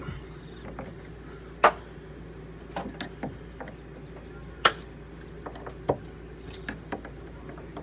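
Scattered clicks and knocks of hands working on a camper door lock and its parts, two of them sharp and loud about three seconds apart, over a steady low hum.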